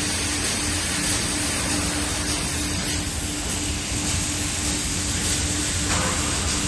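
Steady mechanical hum and hiss with a faint pulsing low tone; a thin high whine joins about three seconds in.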